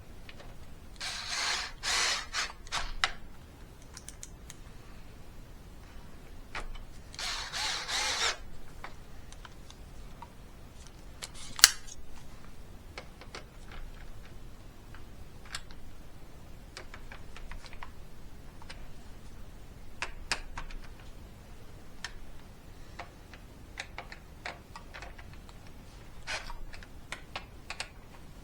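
Small clicks and taps of hand work on a plastic climate control unit and its screws, with two short bursts of scraping or rattling about a second in and again around seven seconds, and one sharp, loud click near the middle.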